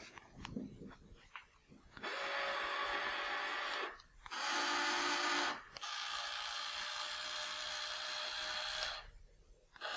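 Small electric pan-and-tilt motor of a remote-controlled searchlight whirring as it turns the lamp, in three runs with short pauses between, the middle run a little louder and different in pitch.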